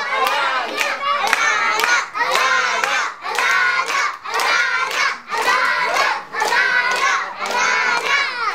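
A group of young children shouting together in rhythm, with clapping.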